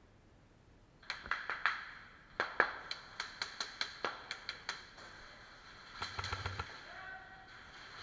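Airsoft guns firing in a concrete warehouse: from about a second in, a string of sharp single cracks with a short echo over some four seconds, then near the end a short rapid burst of fire.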